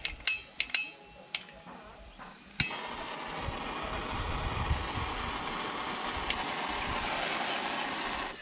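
Small handheld blowtorch clicked alight about two and a half seconds in, then a steady hissing flame for about six seconds that cuts off suddenly, used to melt and seal the cut ends of a nylon starter rope. A few light clicks and clinks come before it as the torch is handled.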